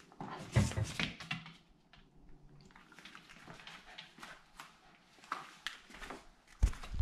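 Fox terrier puppy scuffling close to a camera on the floor, its paws and body knocking against the camera and the mat. A cluster of louder knocks comes about a second in, then lighter scuffing, and heavy low thumps near the end as the camera is jostled.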